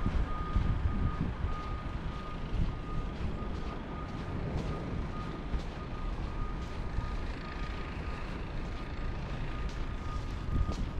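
Vehicle backup alarm beeping steadily in a repeating single-pitch tone, over a low rumble.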